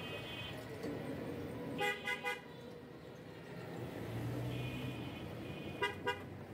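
Vehicle horns tooting in busy street traffic of auto-rickshaws: three short toots in quick succession about two seconds in, then two more near the end, over a steady hum of passing engines.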